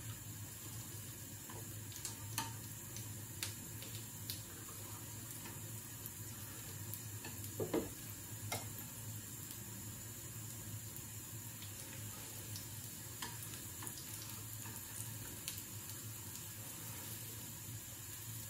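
Food sizzling steadily in a frying pan, with a few sharp ticks of a utensil or spitting oil, the loudest about eight seconds in.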